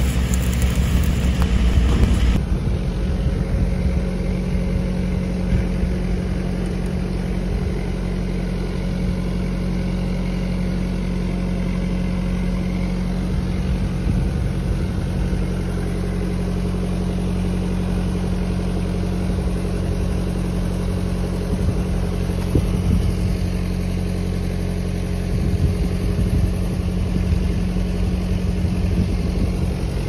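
Lincoln engine-driven welder on a welding rig running at a steady speed. For the first two seconds or so, the crackle of a 7018 stick-welding arc sounds over it, then stops.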